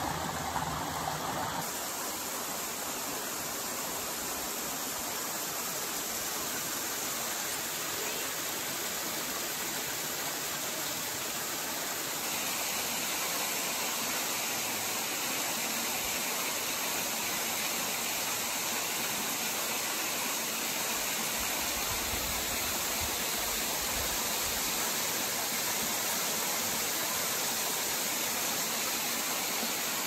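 Waterfall, a thin cascade dropping down a rock face and splashing onto rock, making a steady rushing hiss of falling water. It grows a little louder about twelve seconds in.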